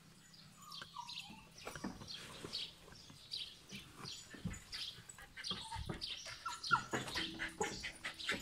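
Many short, high-pitched chirps from animals, falling in pitch and repeated throughout, with a few soft thumps in the second half.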